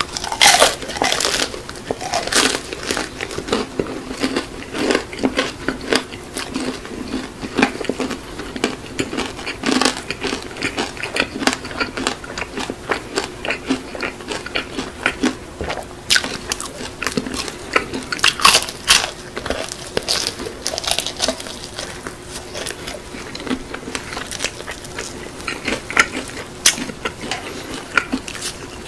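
Close-up crunching of crispy BHC Bburinkle fried chicken being bitten and chewed. A loud crunching bite comes at the start, then a long run of crisp crunches and crackles as it is chewed, with more big bites around 16 and 18 seconds in.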